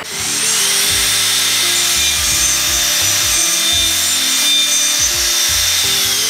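Electric router spindle of a woodworking jig machine spinning up with a rising whine, then running loud and steady at high speed with a dense rushing hiss, and starting to wind down at the very end.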